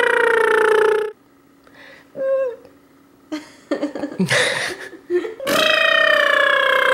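Playful drawn-out vocal noises from a person: a long held note sliding slowly down in pitch that stops about a second in, a quiet stretch with a short note and some scrappy sounds, then another long held note from about five and a half seconds in.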